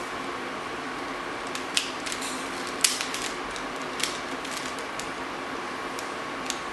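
A few scattered sharp clicks, about a second apart, over a steady background hiss and faint hum.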